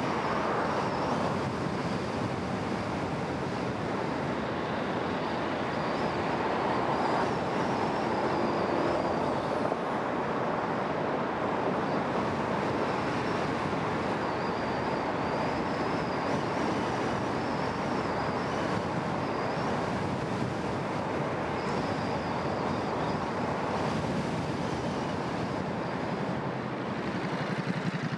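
A car driving along a city street: steady tyre and road noise with the car's engine, in traffic.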